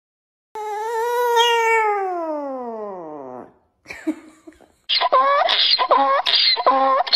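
Small Chihuahua-type dog howling: one long call that falls steadily in pitch over about three seconds, then after a short pause a quick string of about six short yowling calls.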